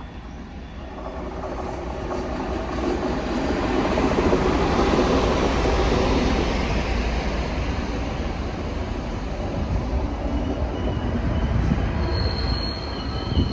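ČD class 754 diesel locomotive running past as it brings the train into the station, loudest about four to six seconds in. Then the passenger coaches' wheels roll by on the rails, and a high, steady squeal starts near the end as the slowing train nears its stop.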